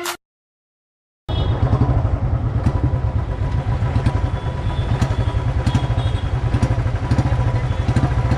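The tail of music cuts off, and after about a second of silence a motorcycle engine starts being heard idling, with a steady rapid low thump, picked up from the bike itself while it stands still in traffic.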